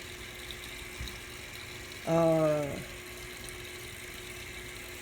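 Portable washing machine filling its drum with water, a steady running-water sound with a faint constant hum. About two seconds in, a voice makes a short hummed sound with a slightly falling pitch.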